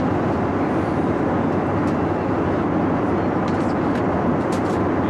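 Steady roar of an airliner cabin in flight: engine and airflow noise, even and unbroken, with a few faint light clicks.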